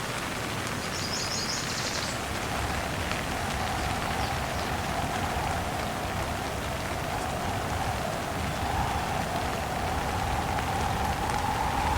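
Steady heavy rain falling, with the wind of a windstorm making a wavering whistle that grows louder near the end.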